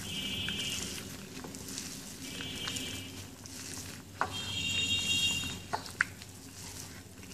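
A gloved hand mixing grated potato, onion and spices in a ceramic bowl: soft squishing and rustling, with a few light knocks against the bowl. Three short, high buzzing tones sound over it, about two seconds apart.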